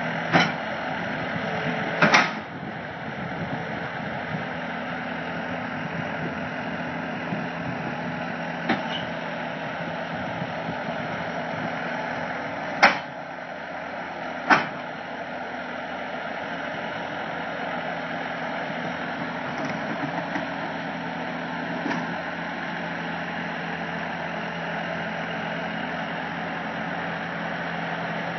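Bobcat skid-steer loader's engine running steadily, with several sharp knocks scattered through, the loudest about 13 and 15 seconds in.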